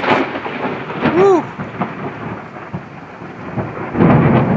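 Thunder rumbling over steady rain, with a heavy low crash of thunder about four seconds in. A short rising-and-falling call cuts through about a second in.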